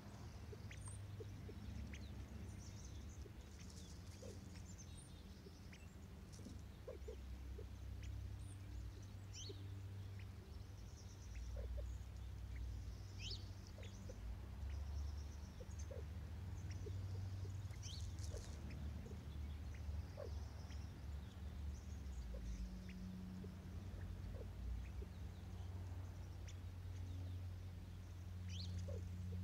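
California quail pecking birdseed off the ground close by: soft, irregular ticks and scratches over a steady low rumble, with a few faint high bird chirps.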